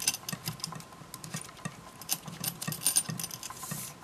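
Small metal strap hardware (buckle and D-ring) clinking and jingling as a leather camera hand strap is threaded and pulled tight, with a quick cluster of clinks in the last second and a half.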